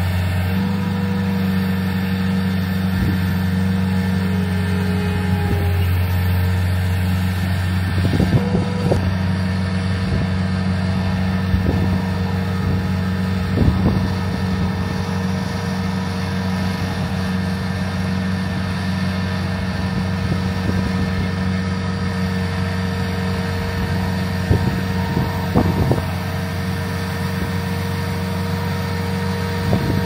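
Volvo MC70C skid steer's diesel engine running steadily as the machine lifts a stack of lumber boards on its pallet forks. A few sharp knocks now and then.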